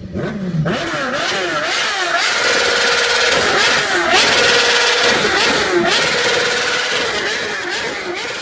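Motorcycle engine revving up and down repeatedly, its pitch rising and falling every second or so over a steady drone.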